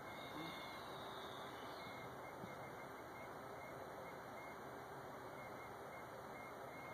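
Amtrak passenger train rolling past along the track, a steady quiet noise of wheels on rail, with a faint high squeal during the first two seconds.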